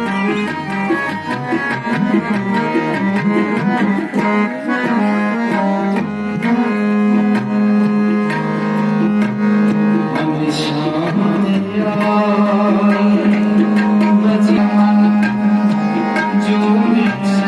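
Instrumental passage of Sikh kirtan music: tabla drumming over sustained harmonium chords, with a steady held low note.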